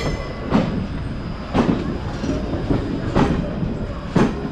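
Passenger train coach running along the track: a steady rumble with wheel clacks over the rail joints, roughly one a second.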